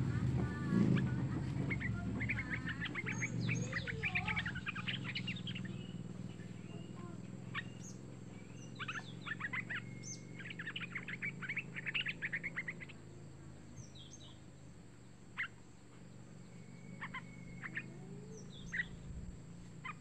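Young yellow-vented bulbul (trucukan) calling: two bouts of rapid, high chattering notes, then scattered single sharp call notes.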